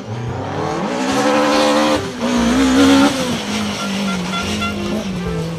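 Race car engine revving. Its pitch climbs about a second in, wavers up and down, then settles lower near the end.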